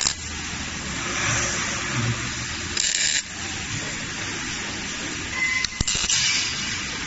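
Robotic MIG welding cell: short bursts of welding-arc hiss and crackle, one right at the start, one about three seconds in and one near the end, over a steady low hum of the machinery.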